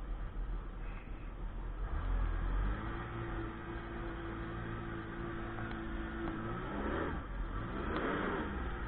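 Sea-Doo personal watercraft engine running at a steady idle from about three seconds in, then revving up and dropping back once near the end.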